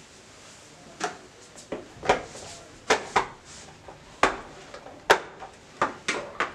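Kitchen items being picked up and set down on a counter: a string of about a dozen sharp knocks and clinks at an uneven pace.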